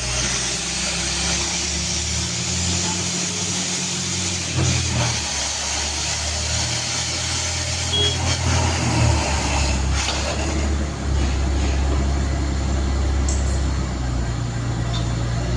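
Engine of a borewell drilling rig running steadily under load, its low drone stepping up and down in pitch a few times, over a constant hiss.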